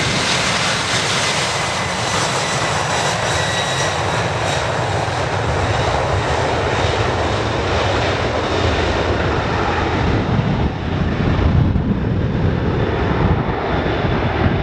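Boeing 747's four turbofan engines at takeoff power: a loud, steady jet roar with a high fan whine in the first few seconds. Over the last few seconds the hiss and whine fade as the aircraft draws away, leaving a low rumble with gusts of wind on the microphone.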